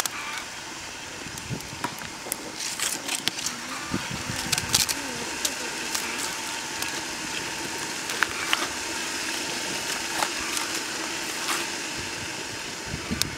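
Open wood fire crackling, with scattered sharp pops over a steady hiss.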